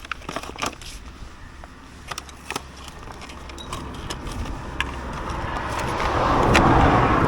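A road vehicle passing, growing steadily louder from about halfway through and loudest near the end. There are scattered small clicks and taps earlier on.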